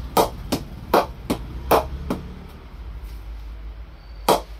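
A leather cricket ball bounced on the face of a Spartan Striker English willow cricket bat, tapping to test the bat. It gives sharp wooden knocks, about three a second for six or so bounces, then a pause and one more knock near the end.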